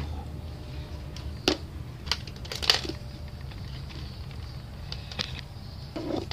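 Handling noise: a few sharp clicks and knocks from hands and the camera moving around the exposed TV chassis and its cables, the loudest a couple of seconds in, over a steady low hum.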